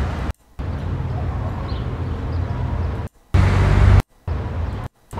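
Recorded city-street ambience, meant as a construction-site background, dominated by steady traffic rumble. Its playback stops dead and restarts about four times, with one louder stretch past the middle.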